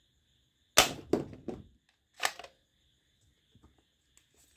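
Hard plastic toy rifle being handled: a sharp plastic clack about a second in with a few smaller rattling clicks after it, a second sharp clack a little past two seconds, then faint light clicks near the end.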